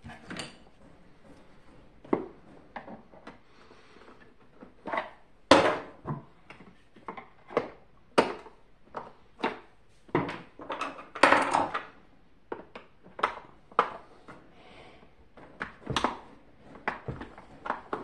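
Irregular knocks, clicks and clatter of hand tools and hard plastic vacuum-cleaner parts being handled on wooden floorboards during disassembly, with a longer rattling cluster about eleven seconds in.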